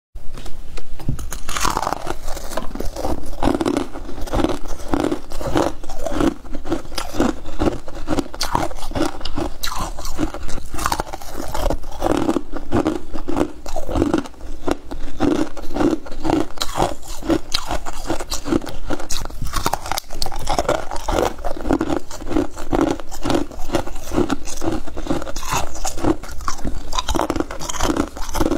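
Frost-coated freezer ice chunks being bitten and crunched, then chewed in a steady rhythm of about two to three chews a second, with a constant crisp crackle of breaking frost.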